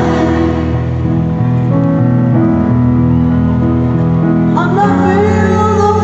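Live slow piano ballad: held piano chords ring on, with a singing voice over them that is strongest near the end.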